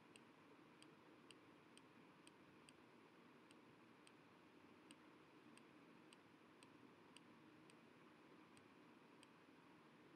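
Near silence: a faint steady hiss with soft high ticks about twice a second, stopping shortly before the end.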